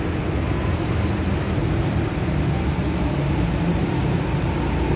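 Steady low rumble of highway traffic.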